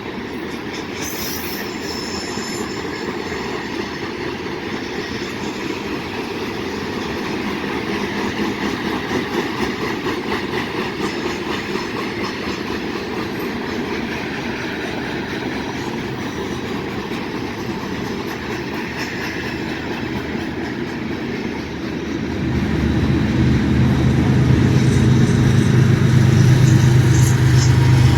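Freight train cars rolling past on the rails with steady wheel clatter and a little squeal. About 22 seconds in, a diesel-electric locomotive's engine drone comes in, low, steady and louder than the rolling cars.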